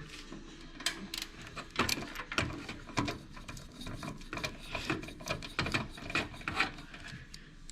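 Irregular light clicks, taps and scraping of small metal PC case parts being handled, as when the PCI slot covers are taken out of the case.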